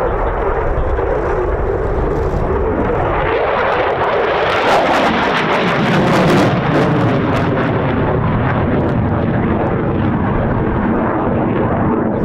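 Loud rushing jet noise from a Belgian Air Force F-16 fighter climbing through a display manoeuvre. The noise turns harsher and crackly from about four to seven seconds in.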